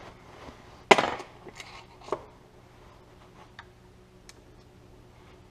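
Metal tools clicking against a John Deere MC's cylinder head as stuck valve keepers are pried apart with a screwdriver and picked out with a small magnet. A loud sharp clack about a second in rings briefly, a second clack follows about a second later, then a few light ticks over a faint steady hum.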